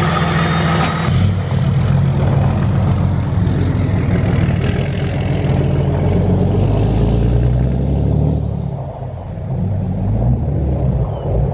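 Lifted pickup's Cummins turbo-diesel engine pulling away and accelerating across a snowy lot. The engine note drops briefly about nine seconds in, then comes back up.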